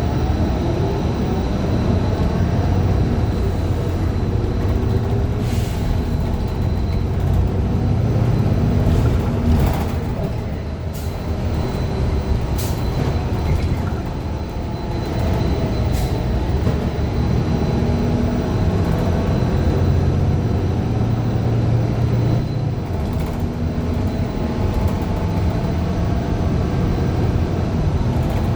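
Inside a Gillig low-floor transit bus running on a Cummins Westport ISL G natural-gas engine and an Allison B400R automatic transmission: the engine and driveline drone rises and falls in pitch as the bus pulls away and slows, with a faint steady high whine and several sharp rattles and clicks. The uploader describes this transmission as bad.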